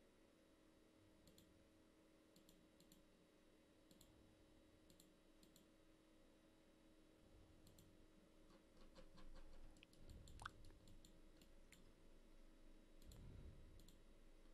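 Near silence with faint clicks of a computer mouse, scattered and some in quick pairs, over a low steady hum.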